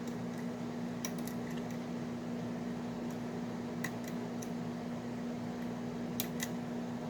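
Small metallic ticks of a dimple pick working the pins and sliders inside a Mauer NW4 high-security dimple lock, coming in a few short clusters, over a steady low electrical hum.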